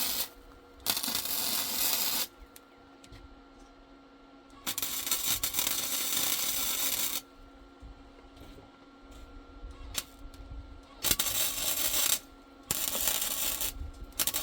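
MIG welder arc crackling on steel as short welds go over small tacks: about four bursts of one to two and a half seconds each, with a steady hum in the pauses between them.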